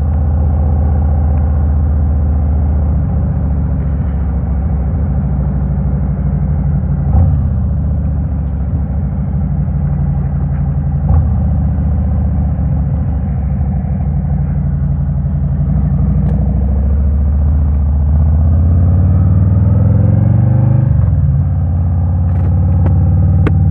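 Harley-Davidson Road King's V-twin engine running while the bike is ridden, its pitch dropping at gear changes about seven and eleven seconds in, then climbing as it accelerates before another shift near the end.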